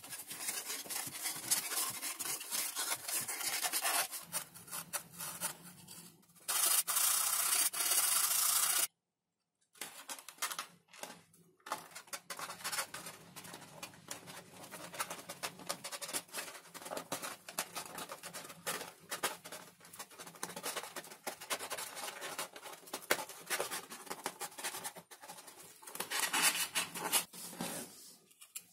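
Hands bending, rubbing and pressing thin 5 mm XPS foam sheets, making a dry, scratchy rubbing and crinkling with small clicks. About six seconds in, a louder, steadier rubbing sets in. It cuts off suddenly about nine seconds in, and after a brief silence the foam handling resumes.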